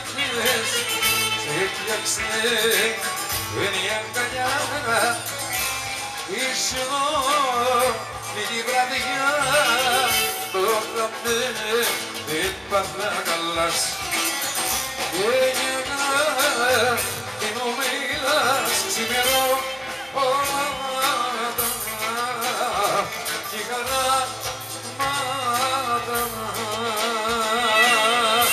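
Live Greek band music with a male singer, clarinet and hollow-body electric guitar, the melody full of wavering ornaments.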